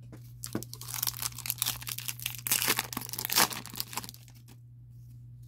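Foil wrapper of a Topps Chrome UFC trading-card pack being torn open and crinkled by hand: a run of crackling rips starting about half a second in, loudest near the end, stopping a little after four seconds.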